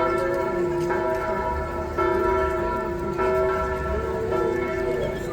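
Church bells pealing: a new bell strike about every second, each ringing on and overlapping the next.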